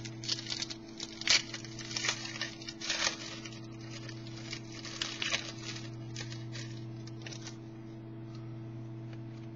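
Trading cards being handled and slid against one another: a run of short, papery swishes and flicks that thins out after about seven seconds, over a steady low hum.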